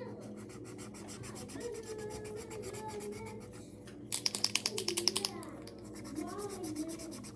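Posca paint marker scratching back and forth on paper in quick strokes while colouring in. About four seconds in, a second of fast rattling clicks as the marker is shaken, its mixing ball knocking inside the barrel.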